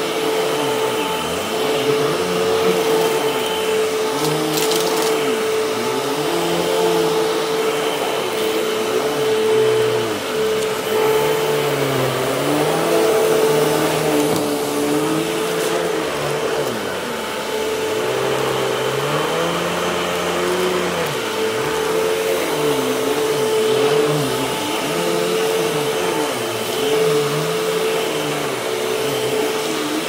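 Hoover upright vacuum cleaner running on a rug with a steady whine, pushed back and forth. Its lower hum swoops up and down every second or two as the machine is worked over the pile.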